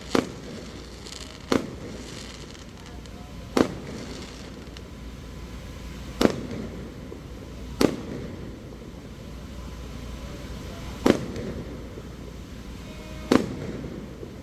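Aerial fireworks shells bursting: seven sharp bangs at irregular intervals of one to three seconds, some trailing off into a brief crackle, over steady background noise.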